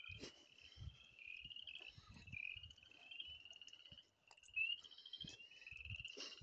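Faint night chorus of frogs, with overlapping high pulsed trills that go on without a break. Beneath it are soft, regular thuds of footsteps through grass.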